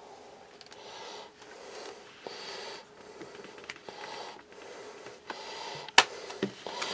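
Breathing close to the microphone, a run of short noisy breaths, with a few small handling clicks and one sharp click about six seconds in.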